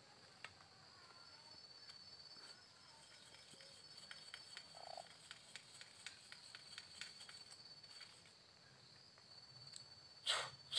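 Night insects, crickets, trilling steadily at a high pitch, with a run of faint clicks in the middle and one short, loud noisy burst near the end.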